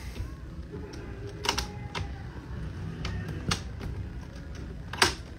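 Handling noise from a hand-held phone: a few irregular clicks and knocks over a low steady hum, the loudest knock near the end.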